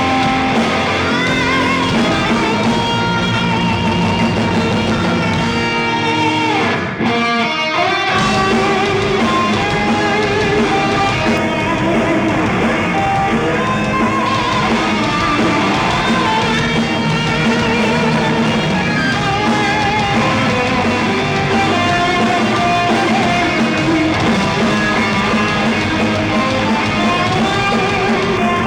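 Amplified band playing rock/metal: an electric guitar lead melody with wavering, vibrato notes over drums. The music drops out briefly about seven seconds in, then resumes.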